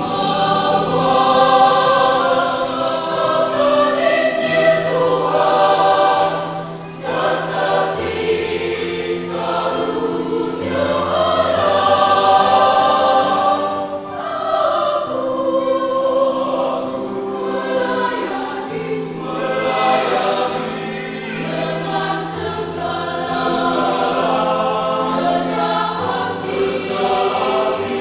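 Choir singing in parts, holding sustained chords that change every few seconds, with a low bass line entering about eight seconds in.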